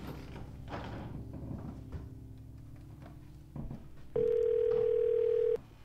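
Telephone answering machine giving one long, steady beep of about a second and a half, starting about four seconds in, ahead of its recorded messages. Before it, soft sustained music.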